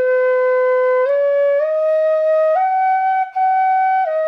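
Bamboo fife (pífano) playing a slow run of long held notes. It steps up through four notes, breaks off briefly past the middle, then steps down one note near the end.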